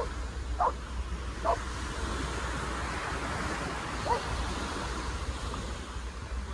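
A small dog yipping four times, three quick yips in the first second and a half and one more about four seconds in, over a steady rushing background noise.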